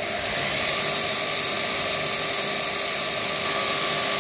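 Bench grinder with a belt-grinder attachment running steadily, having just spun up to speed at the start.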